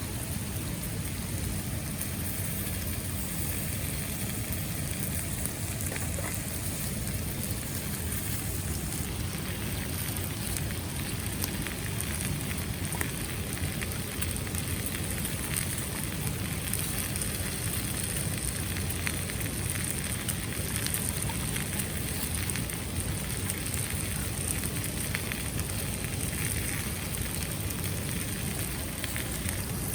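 Steady rushing of a mountain stream, with a few faint scattered crackles.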